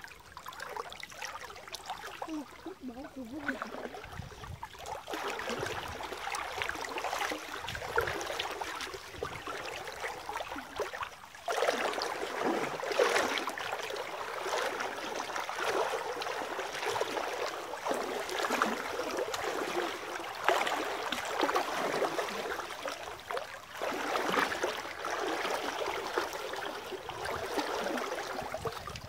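Stream water splashing and sloshing around legs wading through it, in an uneven run of small splashes that grows louder and busier about a third of the way in.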